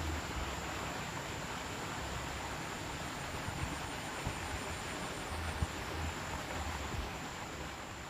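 Steady outdoor background: an even hiss with a thin, high, continuous insect trill, broken by low wind rumbles on the microphone.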